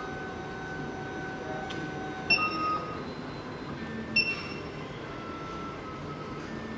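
SEC-E9 automatic key cutting machine running its automobile key clamp calibration: a steady motor whine that holds one pitch, then shifts to another as the motion changes. Two short sharp clicks with a brief high ring come about 2.3 s and 4.2 s in.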